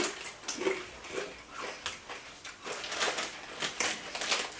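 Crinkly rustling and crunching from snacks being handled and eaten, a string of short irregular crackles.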